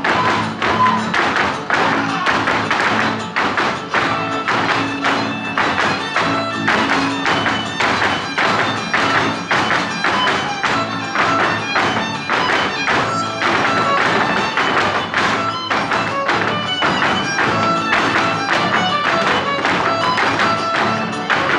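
Huasteco string trio (violin, jarana and huapanguera) playing a huapango. Over it comes the rapid zapateado of several dancers, boot and shoe heels striking the stage in a dense, steady rhythm.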